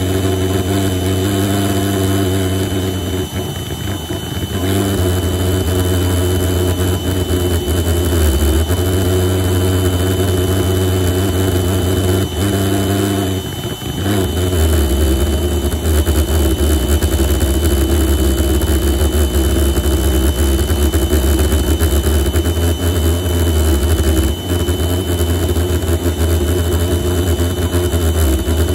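Homemade propane pulsejet, built from a Coleman propane cylinder and steel pipe, running with a loud steady drone while an electric air pump blows into it. It falters briefly twice, about four and fourteen seconds in, and runs deeper after the second.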